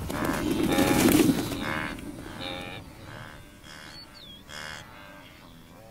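A wildebeest herd on the run: hooves drumming over dry ground, loudest about a second in, then a steady string of short, nasal, moo-like grunts repeated every half second or so.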